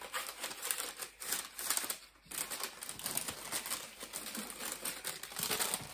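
Paper and plastic packaging rustling and crinkling in rapid, irregular crackles as items are handled and put back into a bag.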